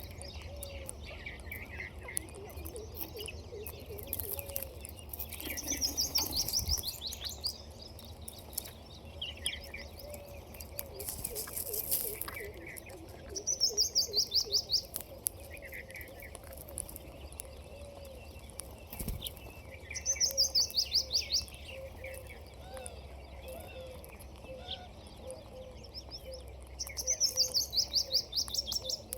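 Ringneck parakeet giving loud, rapid pulsed calls that fall in pitch, each about a second long, four times at intervals of about seven seconds, with softer chirps in between.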